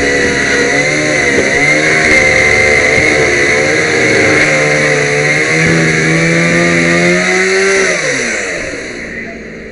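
Small gasoline engine running hard, its pitch wavering up and down as under changing load, over a steady hiss; about eight seconds in it throttles down, the pitch gliding lower and the sound dropping away.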